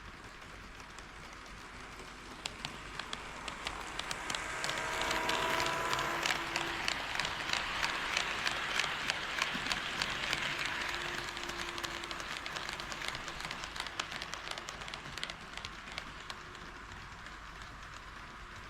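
HO scale model train, a KATO D51 steam locomotive model, running past on the track: a rolling rumble that grows louder, peaks and fades away, with a quick run of sharp clicks as the wheels cross the rail joints.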